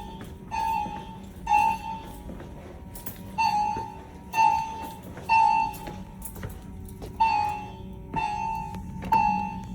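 Fire alarm signal sounding a single tone in the three-pulse temporal evacuation pattern: three half-second tones about a second apart, a longer pause, then the group repeats.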